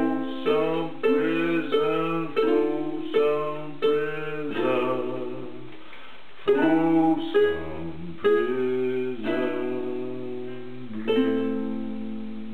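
Acoustic string instrument strummed in a steady rhythm of about two chords a second, then slowing to a few single chords that are left to ring as the song ends.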